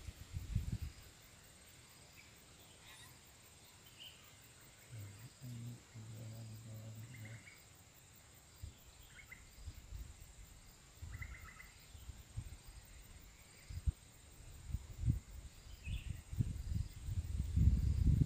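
Quiet natural ambience: a steady high insect drone with a few short bird chirps scattered through it. There is low rustling just after the start and again in the last few seconds, and a faint low hum for about two seconds in the middle.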